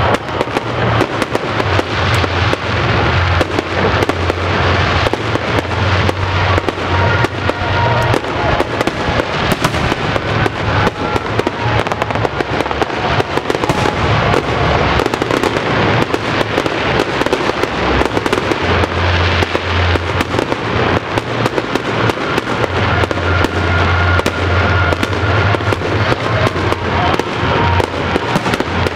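Fireworks crackling: a dense, unbroken barrage of small sharp pops and reports, many each second, from crackling-star shells bursting overhead.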